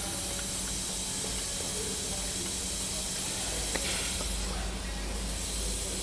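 Steady hiss and low hum of workshop background noise, with a single light click a little before four seconds in.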